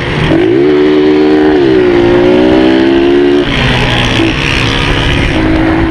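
Motorcycle engine held at high revs under hard throttle, its pitch dipping briefly about a second and a half in, then easing off about three and a half seconds in and picking up again near the end.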